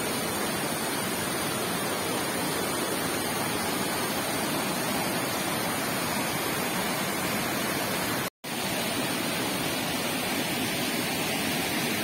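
Shallow rocky stream rushing steadily over boulders and small rapids: an even, continuous water noise. It cuts out for a split second about eight seconds in, then carries on the same.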